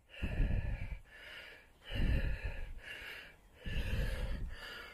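A man's heavy breathing close to the microphone: about six breaths in a steady rhythm, each under a second long, with a low rush of air on the mic at each one.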